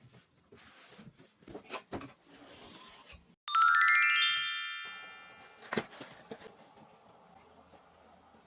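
A quick rising electronic chime of stacked ringing notes, about three and a half seconds in, fading out over about two seconds, with light clicks and knocks before and after it.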